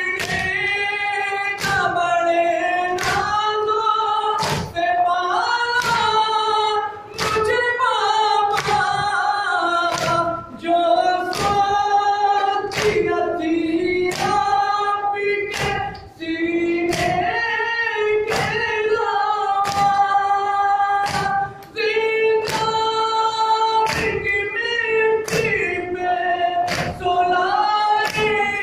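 Nauha, a Muharram lament, sung by men's voices in chorus. Throughout it runs a steady beat of open-handed chest slaps (matam) struck together by the mourners, a little more than one a second.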